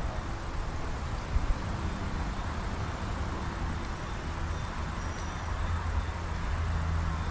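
A motor vehicle engine running with a steady low hum that grows louder near the end.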